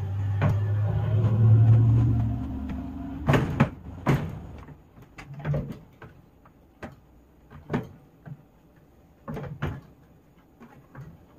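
A low, steady rumble that stops about three seconds in, followed by a series of sharp plastic clicks and knocks as the clear jug and lid of a countertop milk-and-broth maker are handled and seated on its base.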